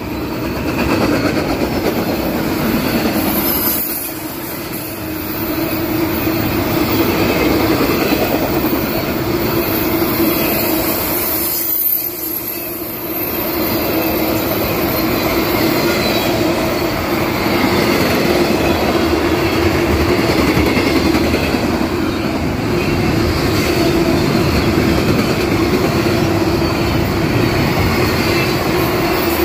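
Double-stack intermodal freight train's container well cars rolling past at close range: steady wheel-on-rail noise with a steady tone running under it, briefly quieter twice, about four and twelve seconds in.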